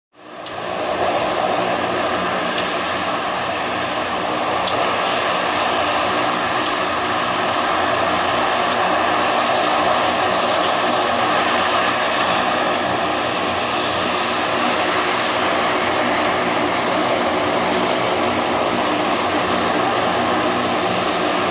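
Antonov An-12BK's four Ivchenko AI-20 turboprop engines running as the plane taxis: a steady high-pitched turbine whine with a lower hum beneath. The sound fades in over the first second.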